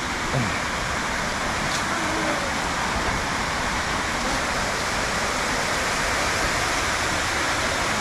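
Rushing water: a steady, even noise that does not change.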